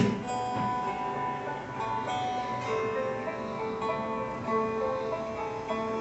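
Instrumental background music on plucked strings, a melody of held notes that change about once a second.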